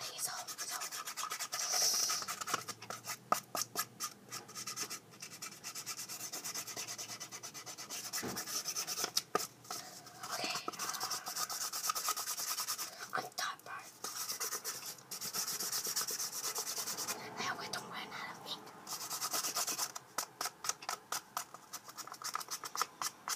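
Cardboard toilet-paper tubes and tape handled and rubbed: a dry rustling with rapid crackles, in several stretches broken by short pauses.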